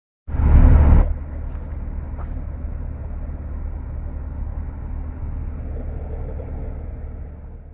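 Road and engine rumble inside a moving vehicle's cabin: a steady low drone, louder for the first second.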